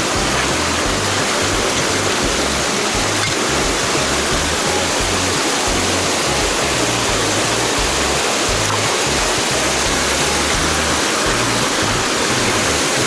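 Mountain stream water rushing steadily, a loud, even hiss of flowing water close by.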